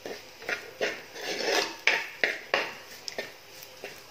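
Metal spoon scraping and stirring thick spice masala in an earthenware clay pot (manchatti), in about eight quick, irregular strokes. The chilli and coriander powders are being roasted on low flame until their raw taste goes.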